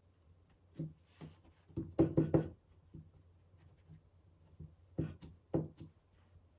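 Hand pressing and patting dough into a carved wooden cookie mould on a wooden table, giving dull wooden knocks: a quick cluster of four about two seconds in and a few more around five seconds in.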